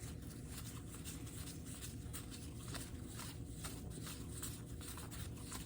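Faint rustle and slide of cardboard trading cards being handled and flipped through, over a steady low room hum.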